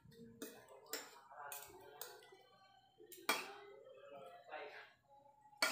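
Metal spoon and fork clinking and scraping on a ceramic plate while eating rice and chicken: about six sharp clinks, the loudest about three seconds in.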